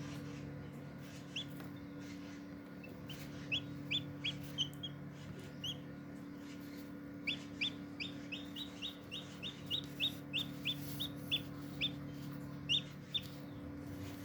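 Shamo Aseel chick peeping during hatching: short, high, rising cheeps, a few scattered at first, then a quick run of about two or three a second. A steady low hum runs underneath.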